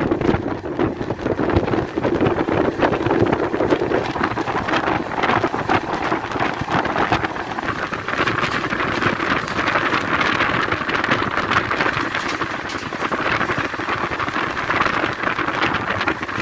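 Express train running at speed, heard through an open coach window: steady wheel-on-rail rushing with a dense patter of clicks, and wind buffeting the microphone. The rush turns brighter and hissier about halfway through.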